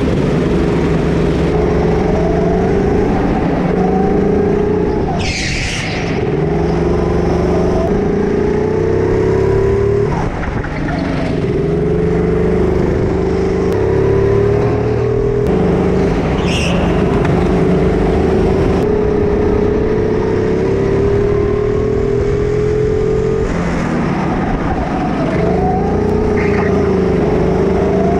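Go-kart engine running at racing speed, its pitch rising and falling with the throttle through corners. A short high squeal about five seconds in.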